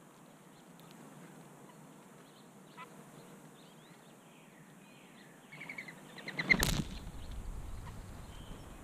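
Small birds chirping in short, high notes in the background, then a sudden loud rustle close to the microphone about two-thirds of the way in, as a mourning dove comes right up to the camera.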